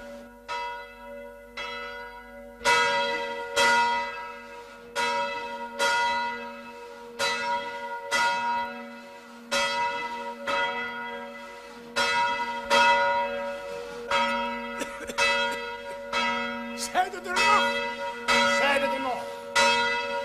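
A large swinging church bell rung by its rope, sounding about once a second with each stroke ringing on into the next. The strokes are faint at first and become louder about two and a half seconds in.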